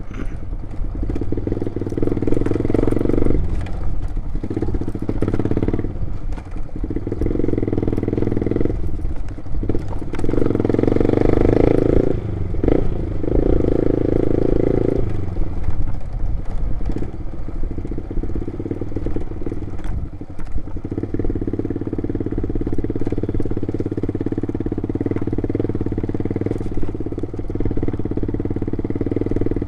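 Motorcycle engine while riding, pulling hard in repeated bursts of one to three seconds as the throttle opens and closes, then running more evenly for the rest.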